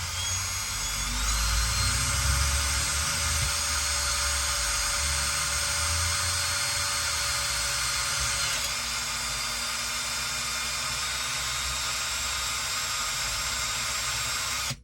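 Electric drill running steadily as its bit bores through the bag's fabric strap, pressed under a washer, into the wood beneath. The whine rises slightly about a second in and cuts off suddenly at the end.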